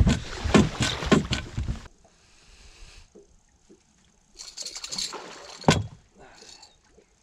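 Water splashing and sloshing in short bursts as a musky thrashes in a landing net against the side of a boat. There is a single sharp knock near the end.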